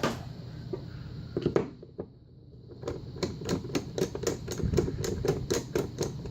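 A Phillips screwdriver working a screw out of a padlock: a few clicks, then a quick, even run of clicks, about five a second, through the second half.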